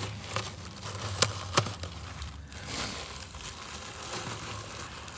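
Old, brittle plastic wrapping crinkling and crackling as it is worked loose by hand, with two sharp clicks a little over a second in.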